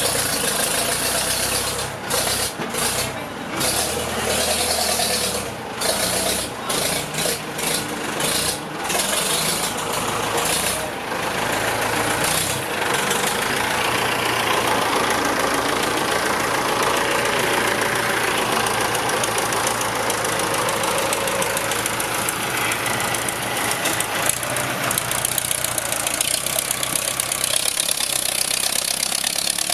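Ford 6610 tractor's four-cylinder diesel engine running loudly with a clattering diesel note as the tractor drives and drags a rear grading blade through soil. The sound is uneven over the first ten seconds or so, then runs steady.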